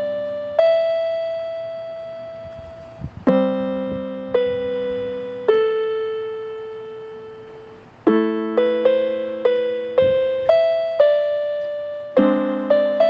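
Solo piano music: slow chords and single notes left to ring and fade, then, about eight seconds in, a quicker run of notes at about two a second.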